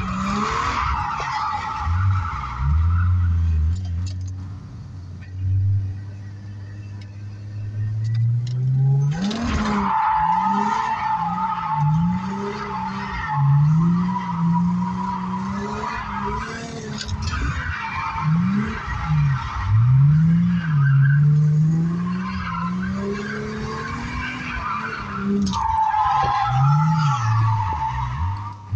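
Car engine revving up and down again and again while the tyres squeal in long slides as the car drifts, heard from inside the cabin. The squeal is strongest at the start, for several seconds from about a third of the way in, and again near the end.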